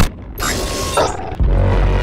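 Cartoon transformation sound effects: mechanical clicking and creaking that builds to a sharp hit about a second in, then a deep rumble that sets in and holds.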